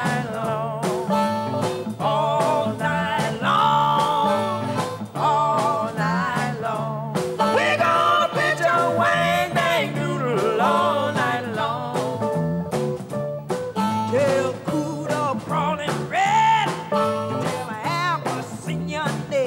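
Chicago blues band playing live: electric guitar, bass guitar and drums keep a steady beat while a woman sings into a microphone.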